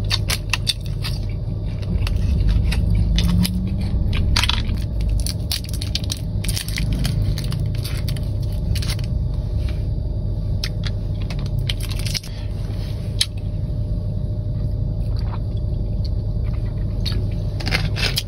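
Close-miked eating: biting and crunching food, with many sharp irregular clicks and crackles, over a steady low hum.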